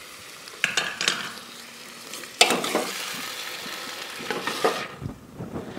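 Sliced potatoes sizzling as they fry in hot oil in a metal pressure cooker, stirred with a steel ladle that scrapes against the pot a few times. The sizzle drops away near the end.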